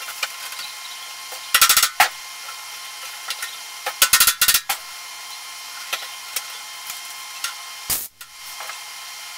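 MIG welder tack-welding a steel patch panel onto a fender: short crackling bursts of arc, one about one and a half seconds in, another around four seconds and a brief one near eight seconds. A few light taps fall between them, over a steady hiss.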